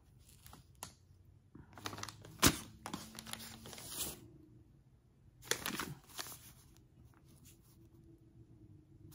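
Paper rustling and crinkling as a sewing pattern envelope and its paper instruction sheet are handled, in two spells, with one sharp crackle about two and a half seconds in.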